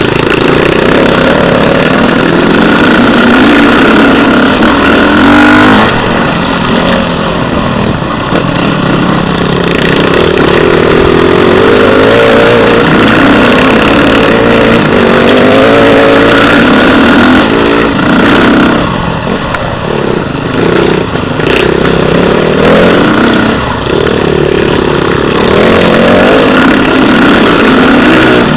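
Beta RR 450 four-stroke single-cylinder enduro motorcycle engine heard up close from the bike, revving up and down over and over as it pulls up a rough dirt climb. Loud throughout, the pitch rising and falling every second or two.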